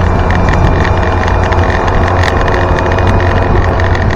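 1961 Land Rover Series 2 station wagon on the move, heard from inside the cabin: a steady low engine drone with a dense, continuous rattling of the body over it. The owner puts the rattle down to thick gasketing fitted in place of Land Rover's rubber buffers.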